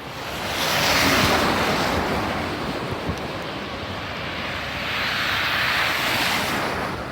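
Two vehicles pass one after the other on a snowy road. Each is a swelling and fading hiss of tyres, the first peaking about a second in and the second about five to six seconds in.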